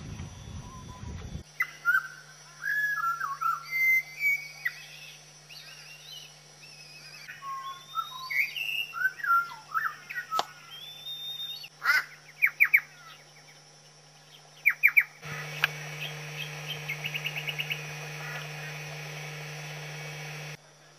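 Several different wild birds calling in turn, with abrupt changes between them about 1.5 s in and again about 15 s in. First comes a mix of chirped and whistled notes, then a fast run of short, repeated trilled notes, about five a second, that stops abruptly near the end.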